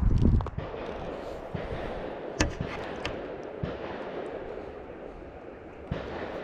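A heavy thump, then a few sharp knocks and clicks spaced about half a second to two seconds apart, over a steady rush of river water.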